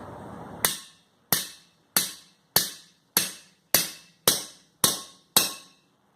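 Hammer striking metal nine times at an even pace, each blow ringing briefly: the conduit is being creased along a flat bar clamped over it to form a handle. A steady noise that cuts off just before the first blow.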